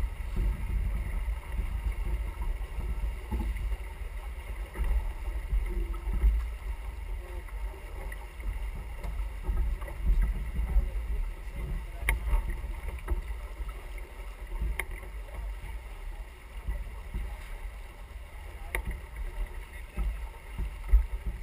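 Wind buffeting the microphone on the deck of a sailing yacht underway, a low gusty rumble over the rush of water along the hull, with a few sharp clicks.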